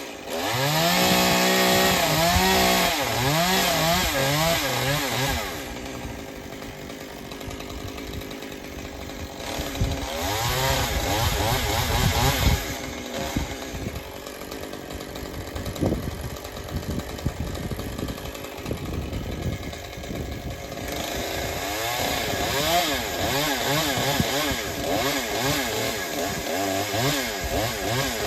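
Gas chainsaw cutting branches off a pine tree, its engine revving up and down again and again in loud bursts, easing back to a lower, steadier run between about six and ten seconds in and again from about thirteen to twenty seconds in.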